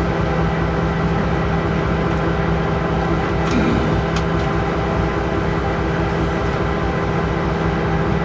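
Diesel locomotive engine running steadily, a constant hum heard from inside the cab, with two faint clicks about three and a half and four seconds in.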